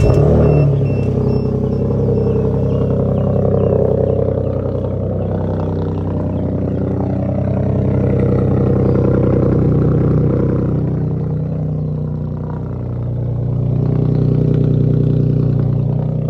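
Ford F-150's 3.7-litre V6 through a muffler-less cat-back straight-pipe exhaust, starting up and then running with a loud drone that swells and eases several times as the throttle changes. A faint high beeping repeats during the first couple of seconds.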